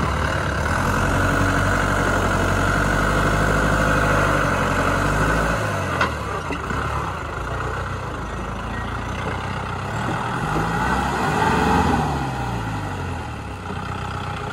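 Jeep engine running while driving off-road, its note rising and then falling about ten to twelve seconds in. A single sharp knock comes about six seconds in.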